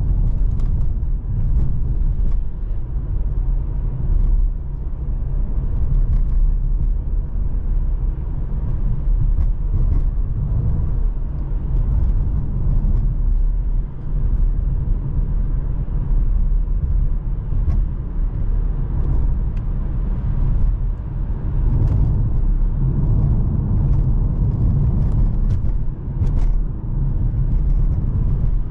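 Mercedes-AMG C43's 3.0-litre twin-turbo V6 and tyre noise while driving at a steady pace: a continuous low rumble with no sharp revving.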